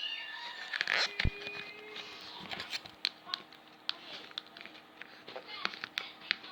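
Slime being dabbed into and pulled back out of a small container to lift the leftover slime, making scattered sticky clicks and little pops.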